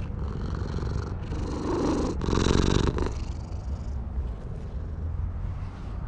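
Domestic cat purring steadily while being stroked, growing louder for a second or so about two seconds in.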